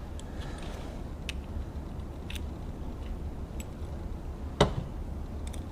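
Scattered light clicks of small metal parts from a sewing machine's tension assembly being taken apart, with one louder knock near the end, over a steady low hum.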